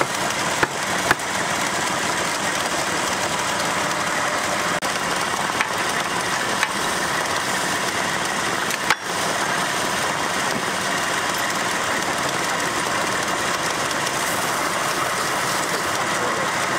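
Wood lathe running while a gouge cuts into a spinning log blank with its bark on, roughing it round: a steady scraping hiss of the cut, broken by a few short sharp knocks.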